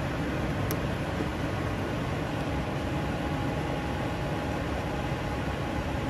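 96% propane gas furnace running while firing, a steady rushing hum of its burners and fans, with one light click under a second in.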